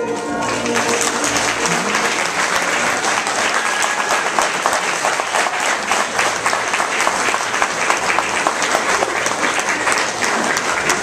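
Audience applause, swelling up about half a second in as a piece of music ends and then holding steady.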